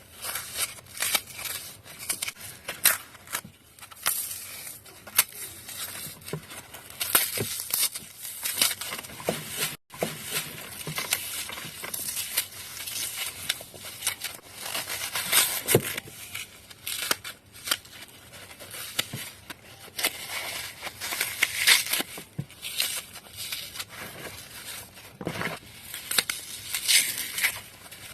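Dry floral foam being crushed and crumbled, a dense run of irregular crunches and crackles.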